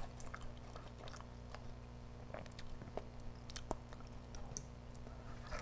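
Faint, scattered small wet clicks of eating: naan bread scooped through thick mutton vindaloo sauce in a glass dish, mixed with mouth and chewing sounds.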